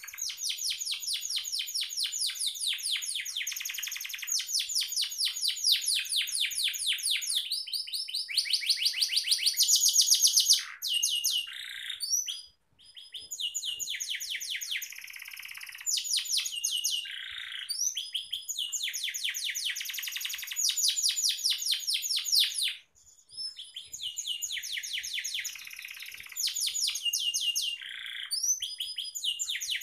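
Domestic canary singing a long, continuous song of rapid trills, each a fast run of repeated high notes, loudest about ten seconds in. The song breaks off briefly twice, about twelve and twenty-three seconds in.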